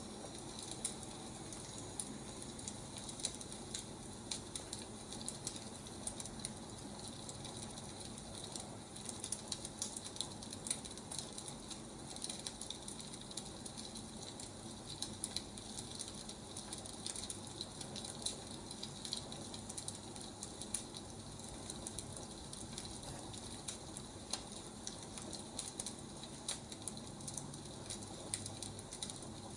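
Firewood crackling in a fire: a steady hiss dotted with irregular sharp pops and snaps.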